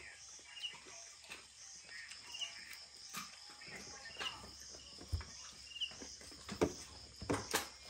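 Faint background insects chirring in a steady, high, pulsing trill, with scattered small clicks and knocks of people eating by hand at a table and a few louder clacks near the end.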